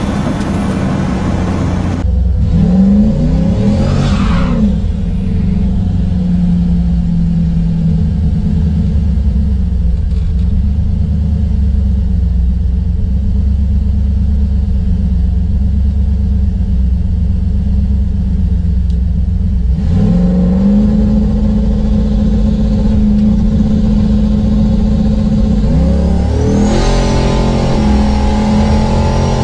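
V8 engine of an LS-swapped Firebird Trans Am drag car, heard from inside the cockpit, running steadily with short revs about three seconds in, about twenty seconds in and again near the end.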